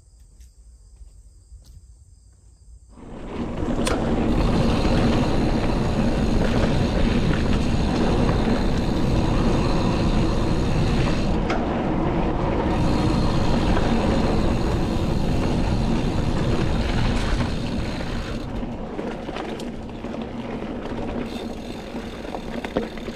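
Crickets chirping steadily, then, about three seconds in, a loud steady rumble of a Devinci Kobain hardtail mountain bike being ridden along a dirt trail, easing off somewhat near the end.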